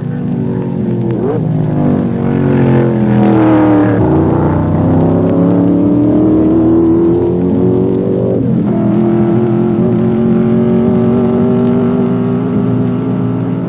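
Racing car engine accelerating hard, its pitch climbing and then dropping sharply at upshifts about four seconds in and again just past eight seconds, then holding a steady high note.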